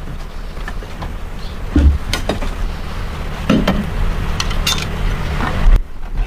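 A few sharp metallic clinks and knocks over a steady low rumble, as of tools or metal parts being handled.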